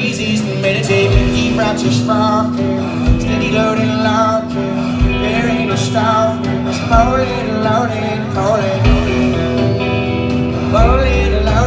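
A live band playing a song, with electric guitars, bass, keyboard and drums under a sung lead vocal. A low beat thumps about every two seconds.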